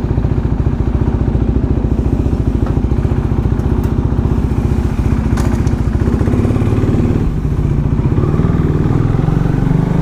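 KTM Duke motorcycle engine running under way, picked up by a helmet-mounted GoPro mic: a rapid even firing pulse, with the note growing fuller about six seconds in.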